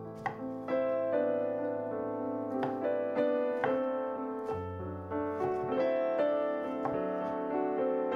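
Background piano music: a gentle melody played as a steady run of notes.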